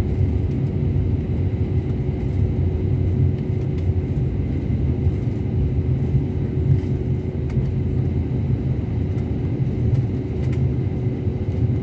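Airliner cabin noise while taxiing: a steady low rumble from the jet engines and the wheels on the taxiway, with a constant hum over it.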